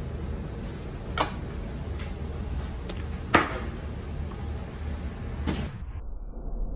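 Three sharp knocks on a butcher's cutting board over a steady low hum, the loudest about three seconds in. The high hiss drops out suddenly near the end.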